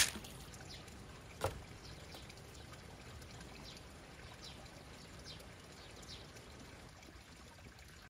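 Water from a spout pouring steadily into a garden pond, a continuous trickling splash. A sharp knock right at the start, the loudest moment, and a smaller one about a second and a half in; faint short high chirps come and go.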